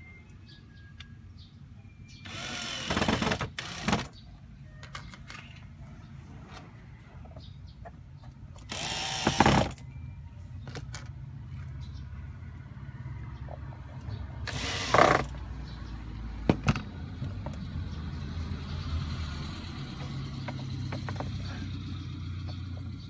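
Short whirring runs of a power screwdriver or drill, three main bursts, among small clicks and knocks of handling parts, over a steady low hum.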